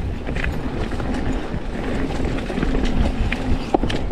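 Mountain bike rolling along a dirt flow trail: a steady rumble of tyres and bike rattle picked up by a chin-mounted action camera, with a few sharp clicks and a knock near the end.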